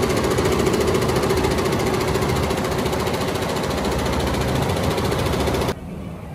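Multi-head computerized embroidery machine with sequin attachments stitching at speed: a fast, even rattle of needle strokes over a steady hum. It cuts off suddenly near the end, leaving a much quieter background.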